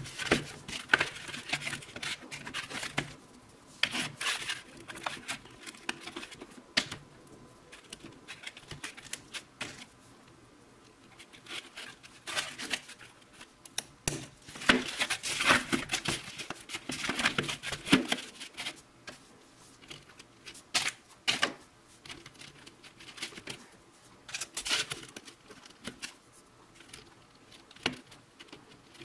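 Small steel roller chain and needle-nose pliers clicking and rattling as the chain is joined to small machined steel blocks by hand: scattered light metallic ticks and clinks, busiest in the middle stretch.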